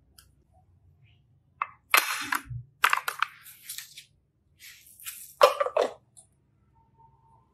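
Hard plastic linking cubes clicking and clattering in several short bursts of sharp cracks. They start about a second and a half in, and the loudest bursts come near two and five and a half seconds.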